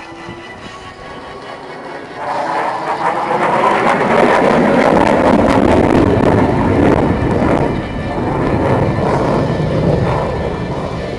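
An F-15 fighter jet's engines during a flyby: a loud, steady rushing noise that swells about two seconds in, holds at its loudest for a few seconds, then eases slightly.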